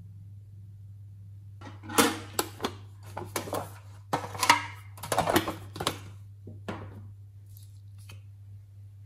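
Hands rummaging in a tin storage case, small hard items clicking and clattering against each other and the tin in quick irregular bursts over a steady low hum.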